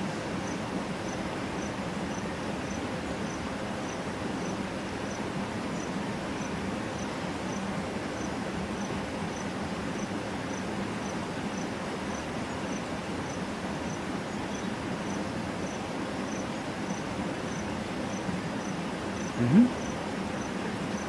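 An insect chirps steadily, a short high tick about twice a second, over a continuous outdoor background hiss. Near the end comes one short, loud, low grunt.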